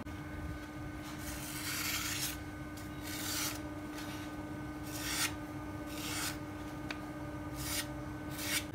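Sheets of paper rustling and tearing as a knife blade is drawn through them, heard as six short rasping swishes with a longer one about a second in. This is a paper-cutting test of the freshly sharpened edge.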